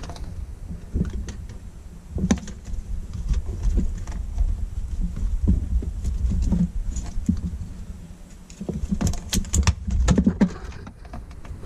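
Hands handling wiring and small plastic parts in a watercraft engine bay: scattered light clicks and rustles, with a quick run of sharper clicks about nine to ten seconds in, over a steady low hum.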